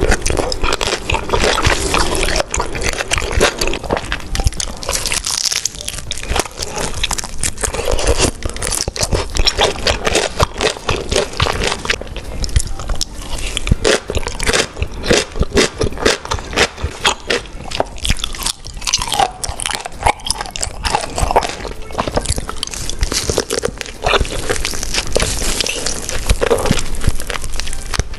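Close-miked eating of beef large intestines: continuous biting and chewing, a dense run of wet, crunchy clicks and smacks.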